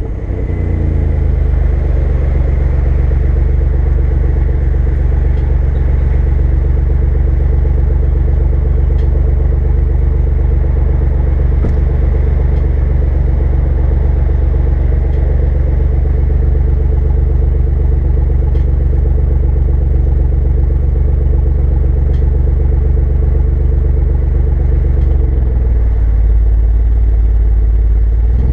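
Alfa Romeo Giulia Quadrifoglio's twin-turbo V6 idling steadily at the exhaust. Near the end the note deepens and the car begins to pull away.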